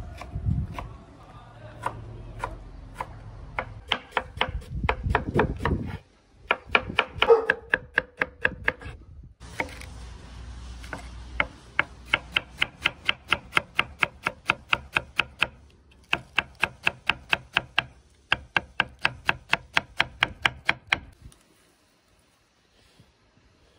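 Chef's knife chopping a red pepper on a wooden cutting board, quick even strokes at about four or five a second in several runs with short pauses, stopping near the end.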